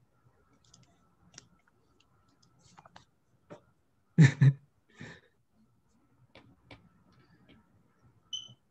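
Scattered light clicks and knocks of handling at a desk, with a loud double thump about four seconds in, a softer knock just after it, and a brief high chirp near the end.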